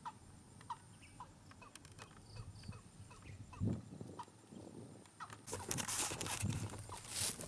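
Watercock calls: a few short rising notes about half a second apart near the start, then a few fainter higher chirps. From about five and a half seconds in, loud rustling and knocking as someone moves through the grass with the camera.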